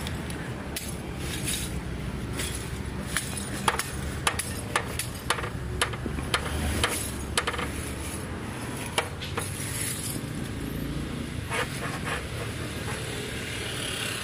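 Irregular sharp knocks and clinks of hard objects, coming often in the first half and only now and then later, over a steady low rumble.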